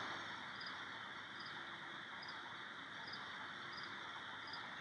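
Faint steady hiss of the recording's background noise, with a faint high tick repeating a little more than once a second.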